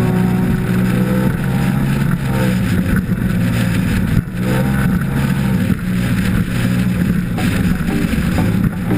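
Yamaha outboard motor on a Phantom 21 speedboat running at speed, a steady low drone under rushing wind and water noise, with a brief dip about four seconds in.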